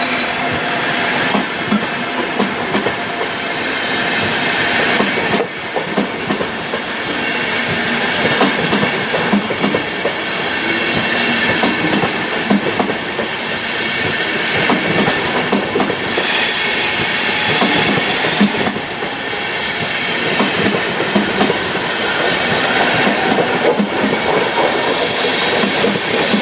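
Intercity passenger coaches rolling slowly past along the platform, wheels clicking over the rail joints, with a high squeal of wheels at times.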